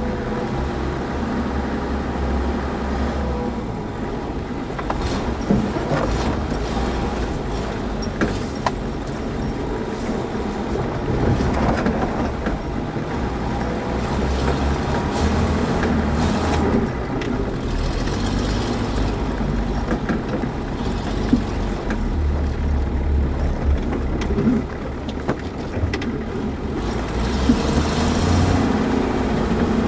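Off-road 4x4's engine running at low speed on a rough trail, its low rumble rising and falling with the throttle, with scattered sharp knocks and rattles as the vehicle bumps over the ground.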